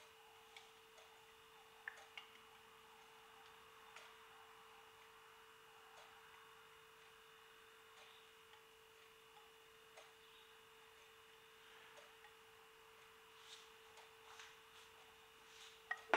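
Near silence with a faint steady tone, broken by a few soft taps and clicks as a silicone spatula scrapes amasi from a glass measuring jug into a plastic mixing bowl; the taps come a little more often near the end.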